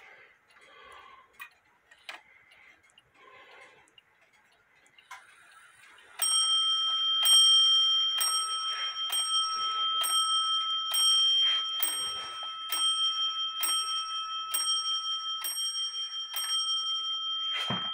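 Warmink Dutch wall clock striking twelve on its bell after the hammer has been adjusted so it hits: about a dozen blows roughly a second apart, the bell ringing on between them. Faint clicks of the clock come before the striking starts, about six seconds in.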